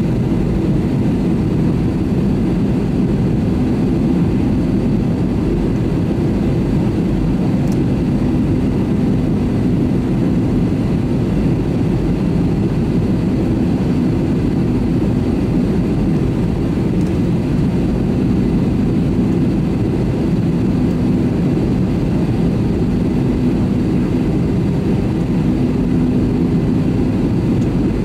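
Airbus A320neo airliner's jet engines running steadily: a constant low rumble with a faint hum that fades in and out several times.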